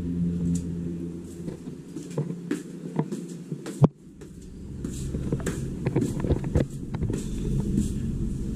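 Handling noise from a handheld camera as it is carried through the house: a low rumble with scattered knocks and clicks, the sharpest click just before four seconds in.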